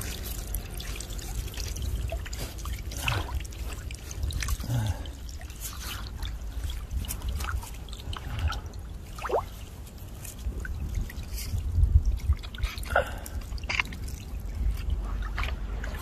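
Shallow stream water trickling, with many scattered drips and small splashes as a mesh fish trap is handled in the water.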